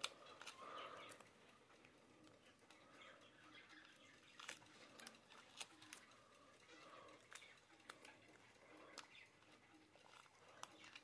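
Faint scratching and crinkling of a paper price sticker being peeled and picked off the plastic back of a quartz clock movement, with scattered small clicks of fingernails and fingers on the plastic.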